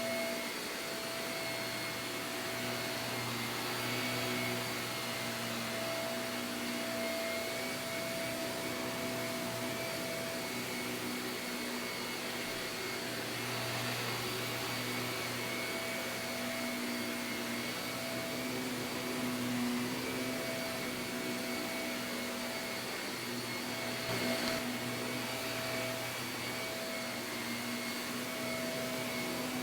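Shark vacuum cleaner running steadily on carpet: a rush of air with a steady motor whine, swelling slightly now and then as it is pushed and pulled.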